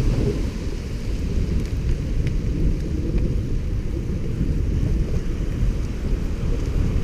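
Wind buffeting the microphone while cycling: a steady low rush with a couple of faint ticks partway through.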